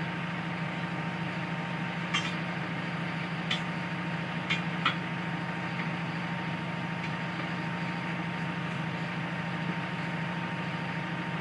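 Steady low machine hum with a thin steady tone over it, and a few light clicks or knocks in the first five seconds.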